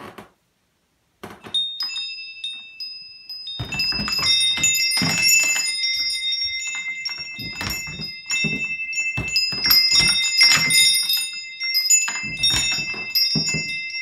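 Metal-tube wind chime hung on a refrigerator door handle, clanging and ringing as the handle is moved, rigged as a fridge-door alarm. Several clear pitched tones are struck again and again with knocks of the tubes and keep ringing, louder from about three and a half seconds in.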